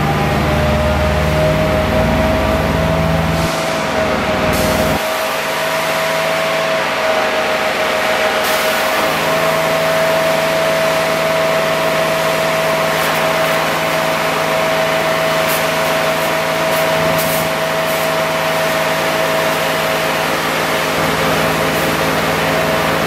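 1995 International 4900 vacuum truck running its vacuum pump: a loud, steady mechanical whine over a low engine hum. The deepest part of the sound drops away about four seconds in.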